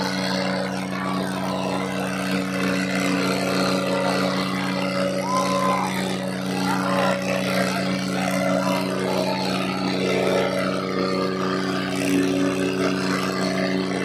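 John Deere and Eicher diesel tractor engines running steadily at a constant pitch, labouring under heavy load as they pull against each other, with a few crowd shouts around the middle.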